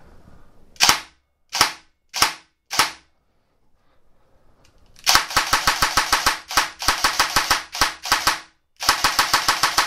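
Airsoft AK V3 gearbox, out of its gun and fitted with an ASCU Gen5 electronic trigger unit, dry-firing on semi-automatic from an 11.1 V battery. Four single shots about half a second apart, then two fast strings of rapid trigger pulls, several shots a second.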